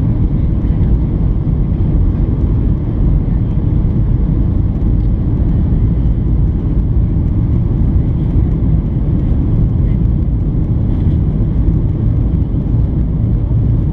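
Steady low rumble of a Boeing 737-800 in flight, its CFM56 engines and the airflow heard from inside the cabin.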